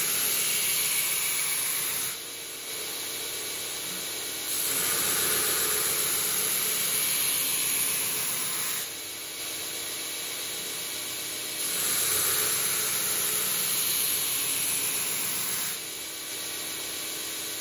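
Belt grinder with a coarse 24-grit belt grinding the bevel of a steel knife blade held in a jig: three passes of gritty grinding hiss, each about four seconds, with the motor and belt running quieter between passes.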